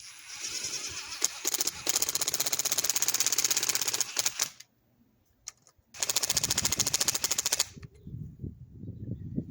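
Fast mechanical rattling, many clicks a second, in two bursts of about four and two seconds with a short pause between, as a screw is driven back in to refit a guillotine tool in an anvil's hardy hole.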